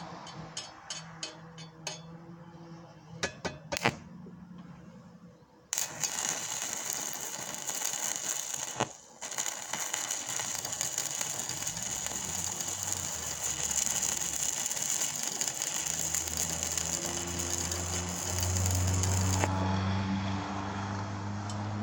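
Stick-welding arc from an E6013 3/32-inch rod running at 45 amps DC electrode positive on 1/16-inch mild steel tubing, cracking and popping in a steady crackling hiss. First a few sharp clicks; the arc catches about six seconds in, breaks off briefly about three seconds later and relights, then stops a couple of seconds before the end, over a low hum.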